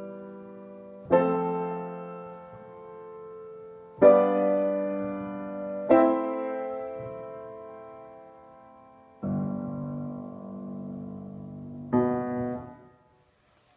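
c.1982 Steinway Model L grand piano played slowly: five chords struck a few seconds apart, each left to ring and fade away. The last chord is damped off shortly before the end.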